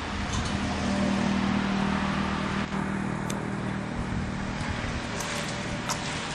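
A motor vehicle's engine humming steadily, growing louder over the first second or so and then slowly fading, with two light clicks near the end.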